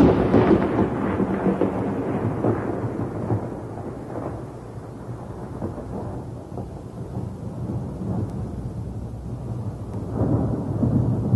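Thunderclap followed by a long rolling rumble that slowly fades, over steady rain. A second roll of thunder swells up near the end.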